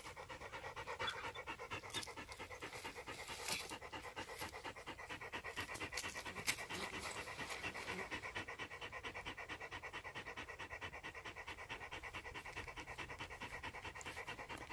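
A dog panting close by in quick, even breaths for the whole stretch.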